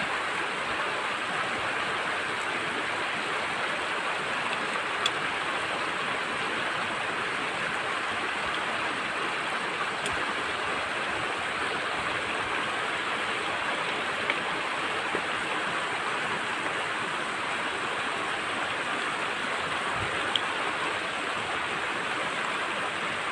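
River water flowing over rocks: a steady, even rushing, with a few faint clicks.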